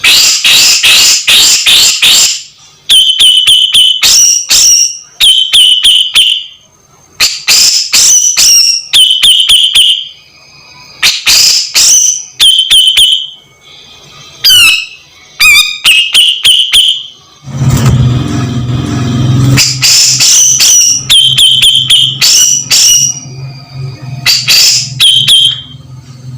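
Grey-cheeked bulbul (cucak jenggot) calling loudly over and over: bursts of harsh rapid rattling notes, many ending in a short clear whistled note, with a few fast sliding whistles. A low steady hum runs underneath from a little past the middle.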